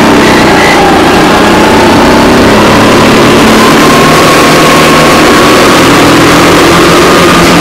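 Sodikart go-kart's engine running loud under the driver through the corners. Its pitch dips slightly early and then climbs gradually as the kart speeds up, over a steady rush of wind and road noise.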